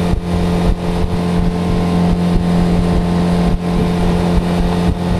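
A boat's outboard motor running steadily at cruising speed, a constant drone, with wind buffeting the microphone as the boat moves.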